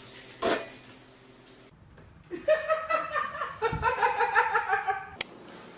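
A person laughing in a quick run of pulsed 'ha-ha-ha' bursts lasting about two and a half seconds, preceded by a brief noisy rustle about half a second in and ending with a sharp click.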